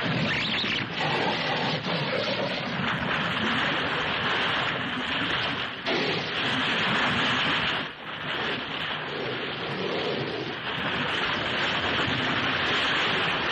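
Dense, steady rush of churning, splashing seawater, like heavy surf breaking, from a dubbed soundtrack's water effects.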